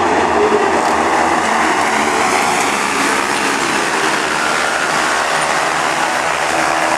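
A pack of autocross sprint-car buggies racing together at full throttle: many engines running at once, blended into one steady, loud engine noise.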